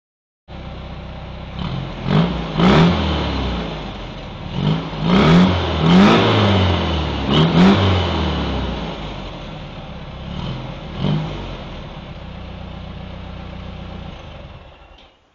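VW Beetle's air-cooled flat-four engine with a motorsport exhaust idling and being blipped: a run of quick revs rising and falling in the first half, one more a few seconds later, then back to a steady idle until it cuts off near the end.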